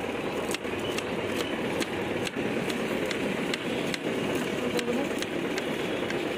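Knife blade chopping green chillies against a wooden chopping board, crisp strokes about twice a second, over steady street noise.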